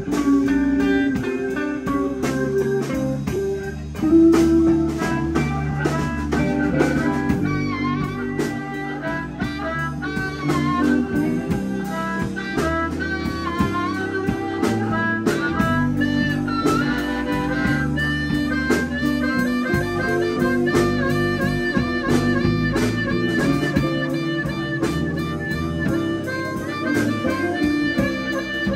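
Live blues band playing an instrumental passage: a harmonica solo with bending notes over electric guitars, bass guitar and drums.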